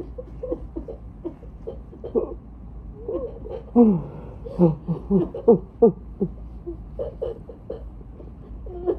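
Crying with joy: tearful sobbing in short, broken bursts that fall in pitch, heaviest from about four to six seconds in.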